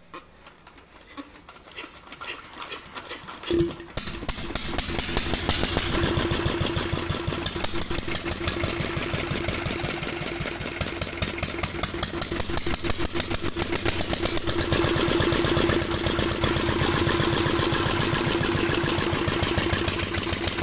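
Restored 16 hp Petter diesel engine turning over with quickening knocks, catching about four seconds in, then running steadily with an even, rapid firing beat.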